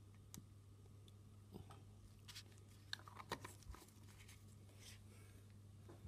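Faint clicks and scrapes of a white plastic screw cap being handled and closed onto a small glass reagent bottle, with the rustle of gloved fingers. The sharpest clicks cluster around the middle, over a low steady hum.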